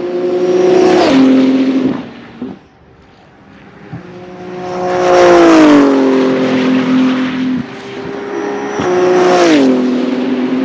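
BMW M4 GT3 race car with its 3.0-litre twin-turbo straight-six passing at speed three times. Each pass is loud, and the engine note drops in pitch as the car goes by.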